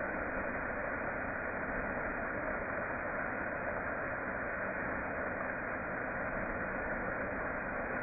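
Waterfall rushing steadily down a rock channel, an even, dull roar of falling water with no high hiss.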